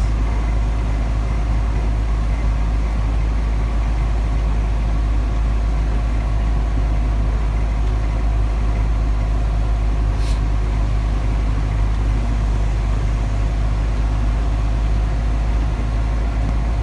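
Steady low road rumble and engine hum inside a moving car's cabin on a wet highway, with tyre noise throughout. A brief short hiss comes about ten seconds in.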